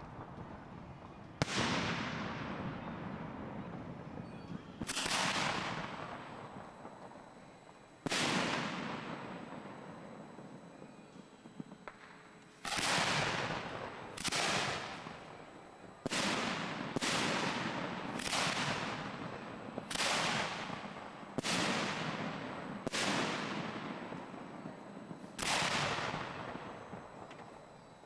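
Aerial fireworks shells fired from ground mortar racks: about a dozen sharp booms, each trailing off in a long echo. They come a few seconds apart at first, then about one every second or so from roughly halfway on.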